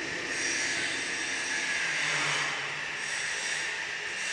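Steady machinery noise in a machine-tool workshop: an even hiss with a low hum that grows clearer about halfway through.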